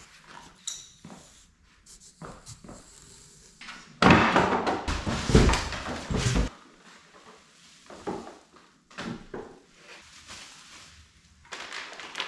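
Cardboard box and packing being handled: scattered knocks and clicks, with a loud stretch of rustling and scraping about four seconds in that lasts about two seconds.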